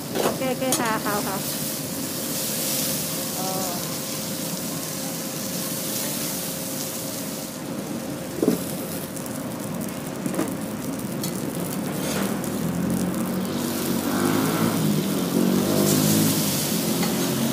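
A whole fish on a banana leaf sizzling on a gas-fired flat-top griddle: a steady hiss with a faint hum beneath it. There is a single sharp clack about eight and a half seconds in.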